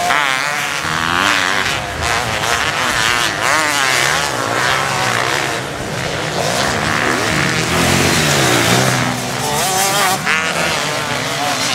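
Several motocross bikes racing, their engines revving hard, each rising and falling in pitch as they accelerate and change gear.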